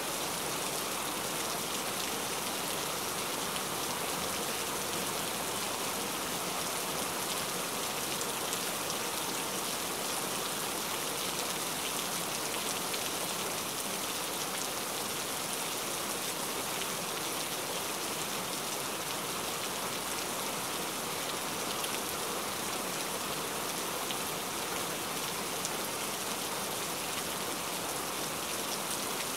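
Heavy rain falling steadily: a dense, even hiss of many drops with fine individual taps.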